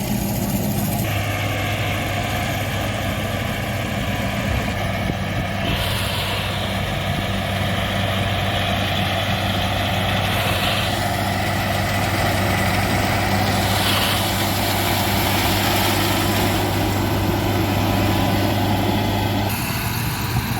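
Engine of a rice-harvesting machine running steadily at constant speed. Its tone shifts about a second in and shifts back near the end.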